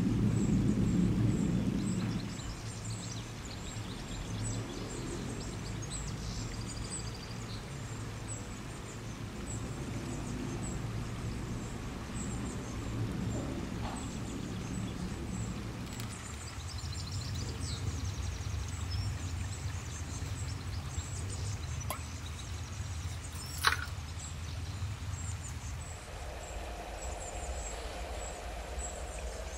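Steady low background rumble with faint high-pitched ticks, and one sharp click about two thirds of the way through.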